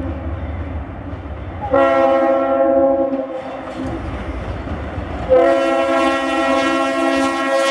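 Locomotive #2006's multi-chime air horn sounding for the grade crossing: one blast about two seconds in lasting about a second and a half, then a second blast starting about five seconds in and held on. The horn is missing its smallest bell, which makes it sound a bit like a goose. Diesel rumble under the first seconds as the train approaches.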